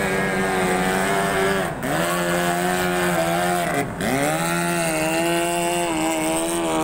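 Outboard engine of a small racing speedboat running flat out as it passes. Its high, buzzing note dips sharply and climbs back twice, about two seconds apart.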